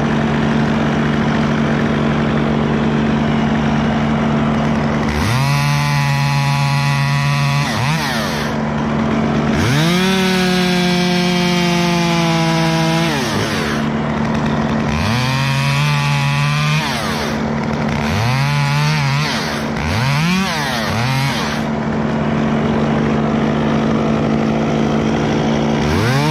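Top-handle chainsaw revved up to full speed in about six bursts, the longest about four seconds, cutting through oak limbs and dropping back between cuts. A steady low hum runs underneath.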